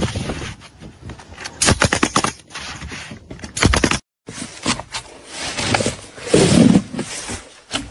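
Pneumatic roofing nailer firing quick clusters of sharp clacks as asphalt shingles are nailed down. After a sudden cut about halfway through, bark is torn and scraped off a felled log by hand, a long ripping scrape that is loudest near the end.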